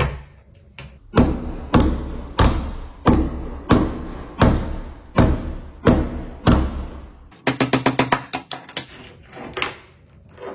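A series of sharp, evenly spaced knocks, about one every two-thirds of a second, each ringing briefly, followed near the end by a quick run of faster ticks and a few last knocks.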